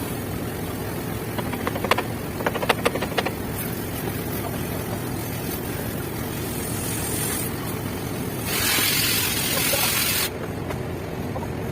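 Steady low machine rumble, with a quick run of sharp clicks about two seconds in and a loud hiss lasting about two seconds near the end.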